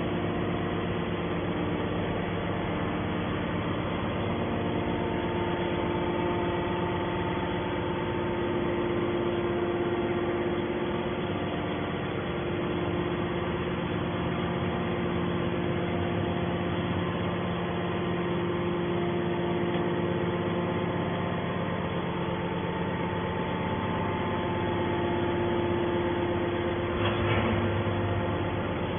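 Hydraulic baler's motor and pump running with a steady hum, a brief louder surge near the end.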